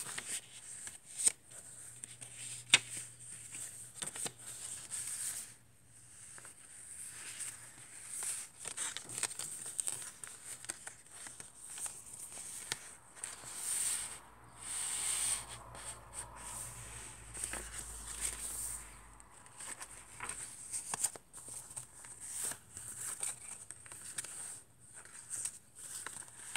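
Paper pages and tucked-in cards and tags of a handmade junk journal being turned and handled, rustling and crinkling in irregular bursts, with a few sharp clicks, the sharpest about three seconds in.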